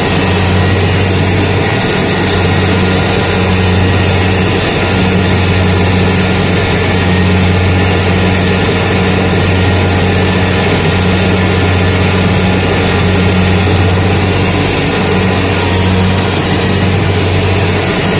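Rice combine harvester running steadily while harvesting, a constant low engine and machinery drone heard close up from the operator's seat.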